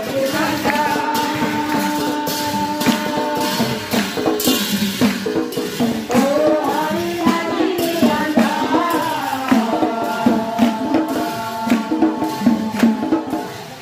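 Many voices singing a devotional hymn together, with hand clapping and jingling percussion keeping the beat.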